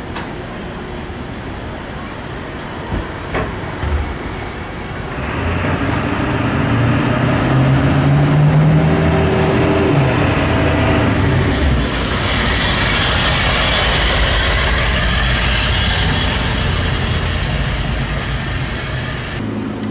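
Street traffic with motor vehicle engines, getting louder about five seconds in and staying loud until near the end.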